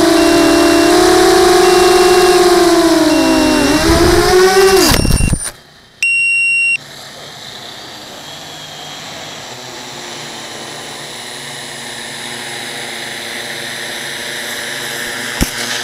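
Multirotor drone's motors whining steadily with a faint beep repeating about once a second, then the pitch sags and drops away about five seconds in as the drone comes down in the grass. About a second later there is a short, loud electronic beep, then only a faint steady hiss, and a click near the end.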